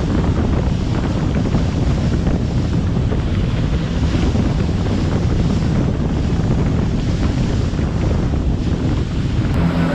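Steady wind buffeting the microphone on a speedboat running at speed, with water rushing and splashing past the hull underneath.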